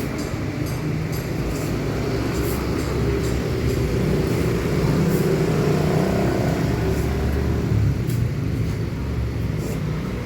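A vehicle engine running with a steady low rumble that grows louder around the middle and eases off near the end, with faint light ticks over it.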